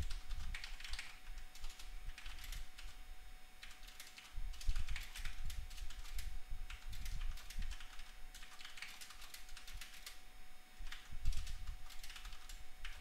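Computer keyboard typing in quick bursts of key clicks with short pauses between them.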